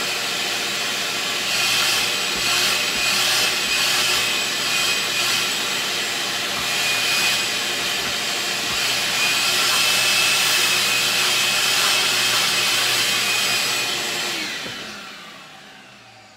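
Electric router in a router table running at speed as pine boards are fed past the bit. It is switched off near the end and spins down with a falling whine.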